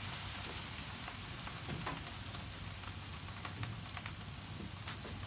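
Salmon fillet, skin side down, sizzling on a grill grate directly over hot charcoal: a steady hiss with scattered small pops and crackles.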